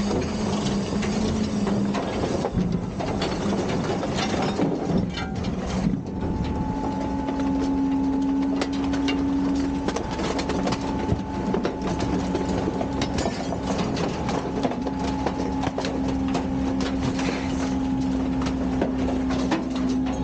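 Garbage truck's diesel engine running, stepping up to a higher, steady speed about six seconds in as the hydraulics work, with frequent knocks and clatter of the truck's machinery and bins.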